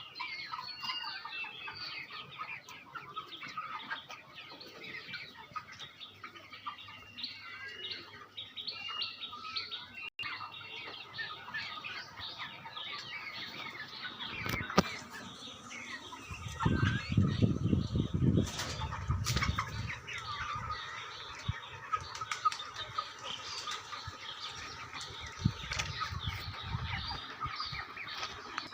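A flock of broiler chickens calling, with many short, high chirps all through. From about halfway in there are several seconds of loud, low rustling and wing-flapping thumps.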